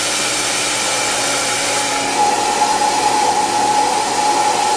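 Handheld hair dryer blowing steadily. About two seconds in its sound shifts, and a steady whine comes in over the rush of air.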